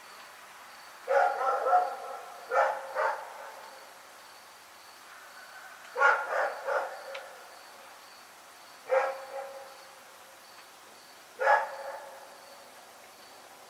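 Dog barking in irregular bouts: a quick run of barks about a second in, two more just before three seconds, another run around six seconds, then single barks near nine and near eleven and a half seconds. A faint steady insect chirping runs underneath.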